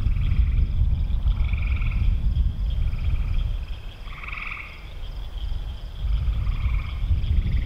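Frogs giving short trilled calls, about one a second, the loudest about four seconds in, over a loud low rumble that eases off for a couple of seconds in the middle.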